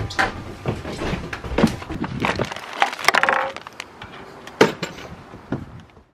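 Irregular knocks and clatter on wood, a string of sharp hits at uneven spacing, with a short squeak about three seconds in. It cuts off suddenly just before the end.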